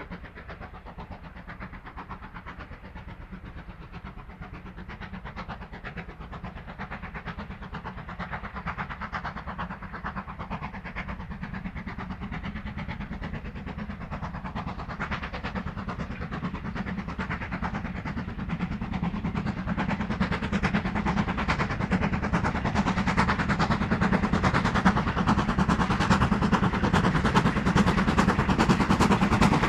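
Steam locomotive hauling a train as it approaches, its rapid working beats and rail noise growing steadily louder throughout.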